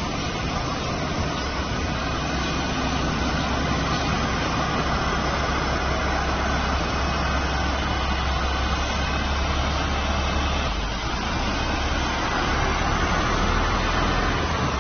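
Heavy diesel engine of a HOWO sewage suction truck running steadily with a deep low drone, which shifts slightly in pitch about eleven seconds in.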